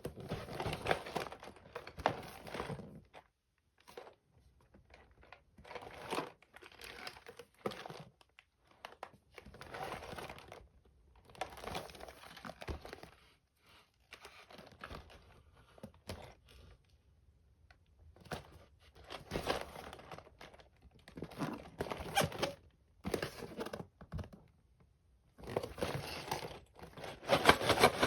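LEGO set packaging being opened by hand: plastic and cardboard crinkling and tearing in repeated bursts of a second or two, with short pauses between them.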